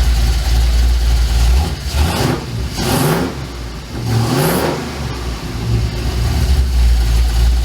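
1967 Mercury F-250's V8 engine idling, with the throttle blipped twice near the middle so the revs rise and fall. The engine has freshly set ignition timing and its vacuum advance is disconnected.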